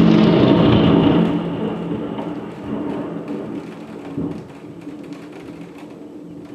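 Thunder from a very close lightning strike: a loud rumble right after the crack, dying away over about four seconds to a faint background.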